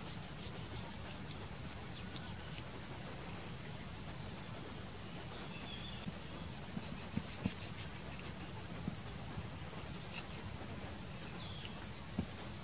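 Insects chirring steadily, with a few short bird chirps, and now and then a soft knock of a knife blade against a wooden cutting board as food is sliced.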